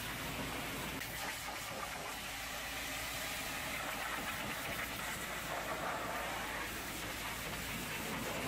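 Pressure-washer lance spraying a high-pressure jet of hot water onto a muddy truck chassis and wheel area: a steady hiss of spray striking metal.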